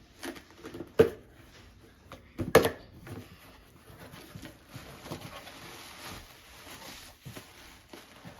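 Two sharp knocks about a second and a half apart, then faint rustling and small clicks of packaging being handled while an item is unpacked.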